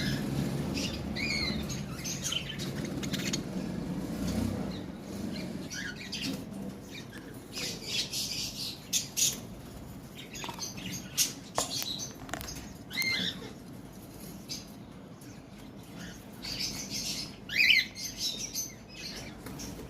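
Pet budgerigars chirping now and then in short curved calls, with scratchy chatter and a sharp click about halfway through. The loudest chirp comes near the end.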